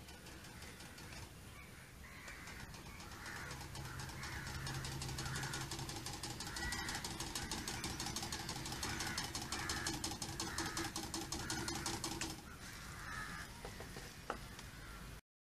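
The 350 W electric kayak motor, driving a 9-inch model aircraft propeller, runs with a steady mechanical buzz. The buzz grows louder as the kayak approaches and falls off suddenly about twelve seconds in. Birds call repeatedly throughout.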